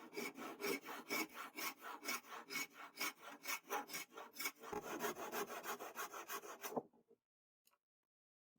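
A hand file being worked in rapid back-and-forth strokes, about four a second, on a knife being made. The strokes stop abruptly near the end.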